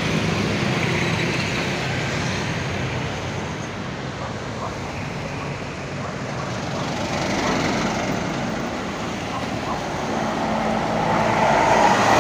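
Road traffic passing: light trucks, cars and a motorcycle driving by one after another, their engine and tyre noise rising and falling. It is loudest near the end as a cargo truck drives past close by.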